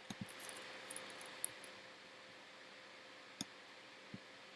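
A few faint, scattered clicks of a computer mouse and keyboard over quiet room tone, one a little louder about one and a half seconds in.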